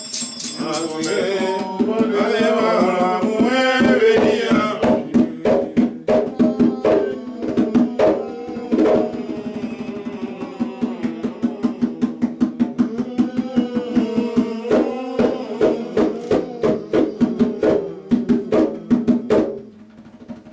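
Vodou ceremonial song: voices chanting over a steady drumbeat, with a rattle shaken in the first second or so. The drumming and singing stop shortly before the end.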